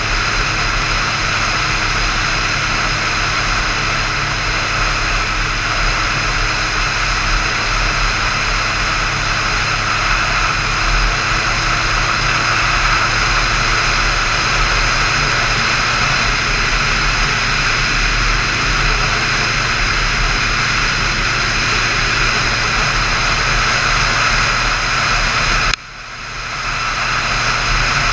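Motorcycle engine running steadily at cruising speed, with wind rushing over the camera microphone. About 26 seconds in, the sound drops sharply for a moment and swells back up over a second or so.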